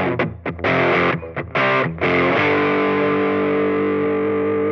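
Gibson SG electric guitar through an EarthQuaker Devices Crimson Drive germanium overdrive pedal into a small Fender Champ amp: a few short, choppy distorted chords cut off by brief gaps, then a chord struck a couple of seconds in and left ringing, slowly fading.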